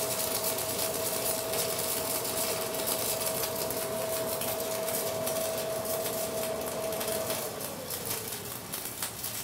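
Short electric arc from a Zeller 480 aluminium-silicon stick electrode welding aluminium, crackling steadily, with a thin steady tone underneath that fades out after about seven seconds.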